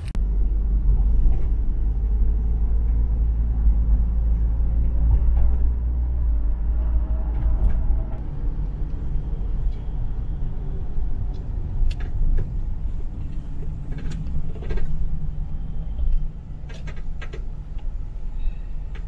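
Steady low rumble of a moving vehicle's engine and road noise heard from inside the cabin, with a few sharp clicks and rattles in the second half.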